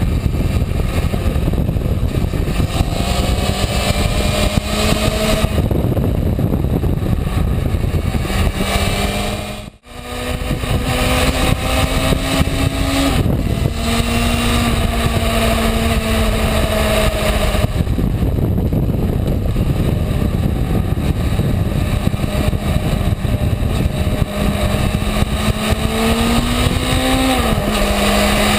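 Honda CB600F Hornet's inline-four engine running at road speed under wind and road rush. Its steady note climbs, then falls back sharply twice, near the middle and again near the end, as the rider changes up a gear. The sound briefly almost cuts out about a third of the way in.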